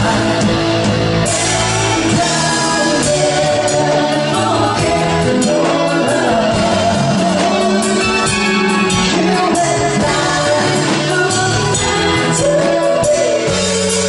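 A band playing a song with a singer, guitar among the instruments, at a steady, even loudness.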